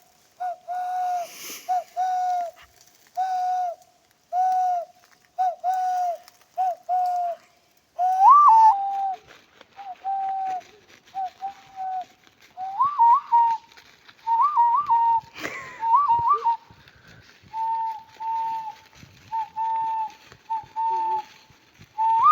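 Hand whistle blown through cupped palms in imitation of bird calls: a series of short, hollow hooting notes, at first on one low note about once a second. From about a third of the way in the notes sit higher, many starting with a quick upward flick, in pairs and longer held hoots. About two-thirds of the way in there is a brief noise.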